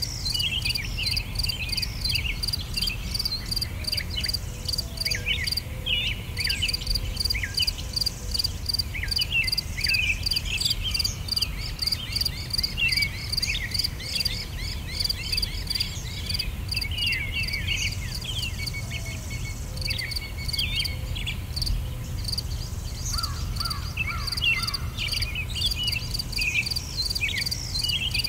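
Insect chirring in a rapid, even pulse, with many short, high chirps and squeaks darting over it. Under both runs a low rumble.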